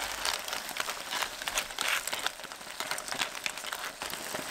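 Clams, cherry tomatoes and butter sizzling in a pot, a steady hiss with many small pops and crackles, as a wooden spatula stirs the clams in their shells.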